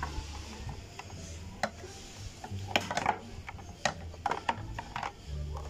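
Plastic side cover of a Yamaha RXZ motorcycle being pushed and tried into its mounting: scattered sharp clicks and knocks of plastic against the bike, over low rubbing from the hand handling it.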